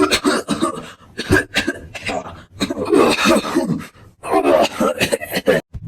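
A voice actor coughing in a long fit, a run of irregular hacking coughs mixed with grunts and groans. It is General Grievous's cough, played as the lungs of a cyborg. It breaks off a little before the end.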